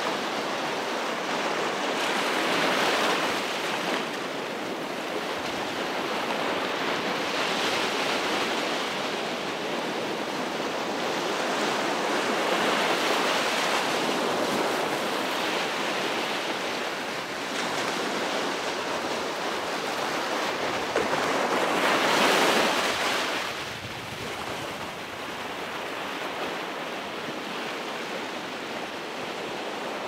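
Ocean surf breaking and washing up a beach: a continuous wash that swells every few seconds as each wave comes in. The biggest break comes about three-quarters of the way through, and the wash is a little quieter after it.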